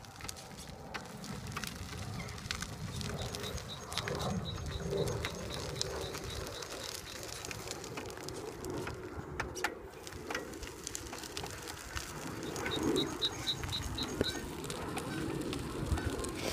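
Outdoor lakeside ambience: a powered wheelchair rolling along a gravel path, with scattered crunches and a steady low rumble, while birds call, among them low cooing and a short run of high chirps near the end.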